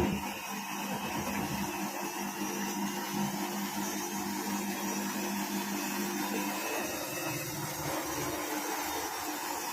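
IFB front-load washing machine running, its motor and drum giving a steady hum and whine; about six and a half seconds in the lower part of the hum drops away.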